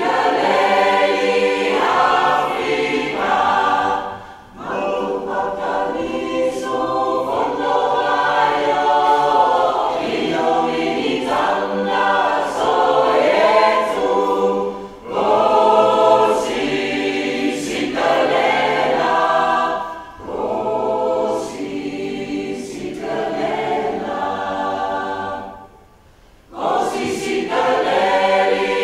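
Mixed choir of men and women singing in long phrases, with a few short breaks between phrases.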